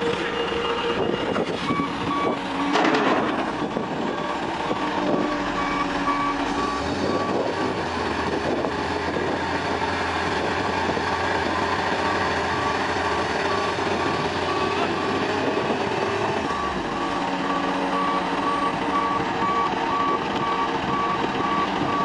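Heavy excavation machinery working: a diesel engine running steadily while a backup alarm beeps at a steady pace, the beeps stopping for several seconds in the middle and starting again. A brief louder noise comes about three seconds in.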